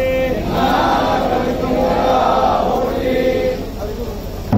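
A crowd of voices chanting together in devotional chant, the pitch rising and falling, over a background of crowd hubbub.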